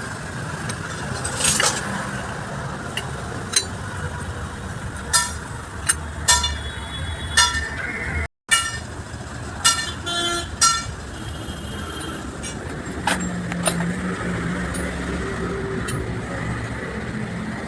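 Metal tools and gearbox parts clinking and ringing in a string of sharp strikes, over a steady rumble of traffic with occasional horn toots.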